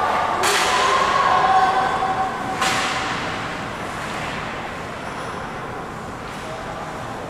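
Ice hockey rink din: high, held shouts from young players or spectators over the first few seconds, and two sharp cracks on the ice about two seconds apart, the first about half a second in. The sound then settles to a steady background murmur.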